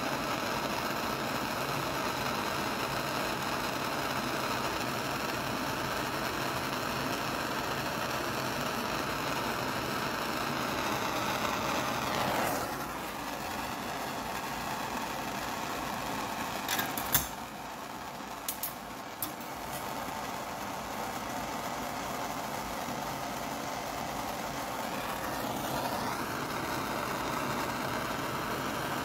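Handheld gas torch burning with a steady hiss as a tiny steel screw is heated to a red glow in its flame. About halfway through the flame noise drops, a few sharp clicks follow, and then it comes back to full for the rest.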